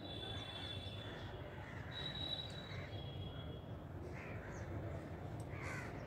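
Crows cawing several times, the calls spread out across a few seconds, over a steady faint high-pitched whine.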